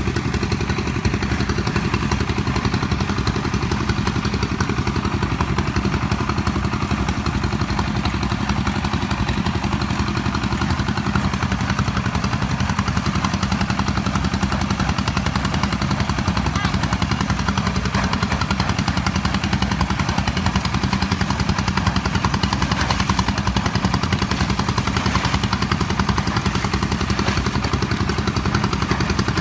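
A small engine running steadily at constant speed, with a rapid, even firing beat that does not change.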